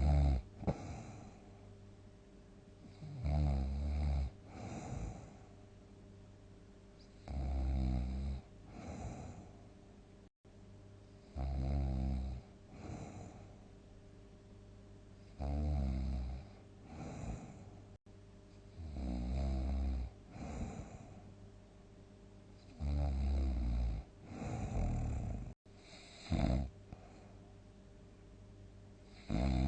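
A sleeping person snoring heavily: a deep, rattling snore on each breath, about every four seconds.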